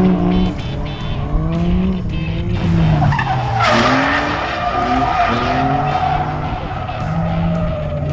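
Drift cars sliding through a corner, engines revving up and down with tyre squeal. A long, steady tyre squeal sets in about three and a half seconds in.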